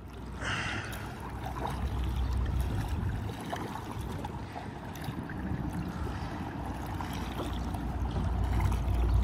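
Choppy river water sloshing and lapping against a canoe's hull as it is paddled, with small paddle splashes, over a steady low rumble of wind on the microphone.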